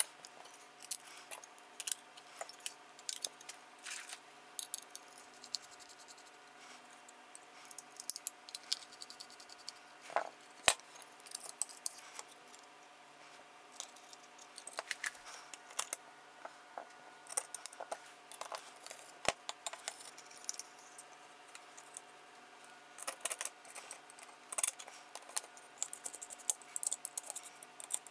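Light, scattered clicks, taps and clatter of carbon-fibre frame plates and small screws being handled and fitted together on a silicone work mat. The sharpest click comes about ten seconds in.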